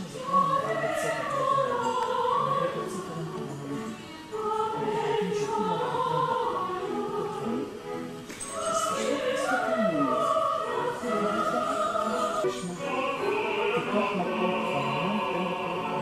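A choir singing classical, operatic-style music, several voices holding and gliding between notes.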